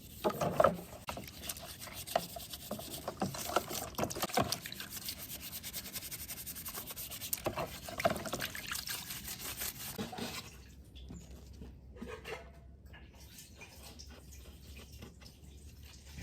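Hand rubbing and scrubbing work with many small clicks and a wet, liquid quality. It turns much quieter about ten seconds in.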